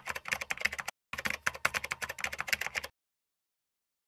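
Keyboard-typing sound effect: rapid key clicks as on-screen text is typed out, with a short break about a second in, then stopping abruptly about three seconds in, followed by dead silence.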